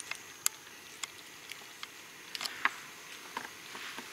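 Faint scattered ticks and crackles of dry leaf litter and twigs being stirred, about ten of them at uneven spacing, over a faint steady high-pitched insect drone.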